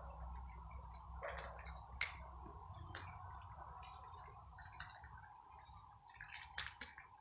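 Stray cats eating dry kibble off stone paving: faint, irregular crunching and clicking, with a few sharper clicks.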